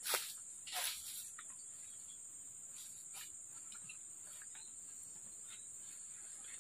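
Forest insects trilling in a steady, high-pitched chorus. Two short rustles come within the first second.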